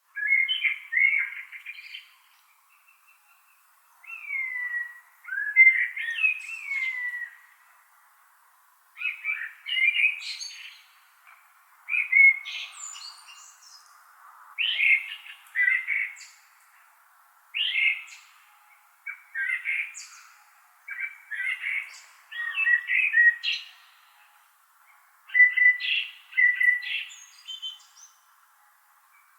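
A blackbird singing: about a dozen warbled phrases, each a second or two long, with short pauses between them.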